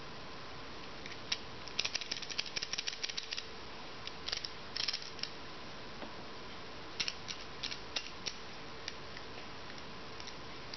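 Small metal clicks and rattles of screwdriver bits and a bit extension being handled and fitted on a Walther Multi Tac multitool: a quick flurry of clicks about two seconds in, then shorter clusters around five seconds and again around seven to eight seconds, over a steady hiss.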